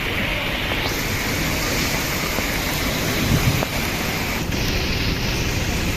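Storm noise of heavy rain and strong gusting wind, a steady rush that grows fuller about a second in.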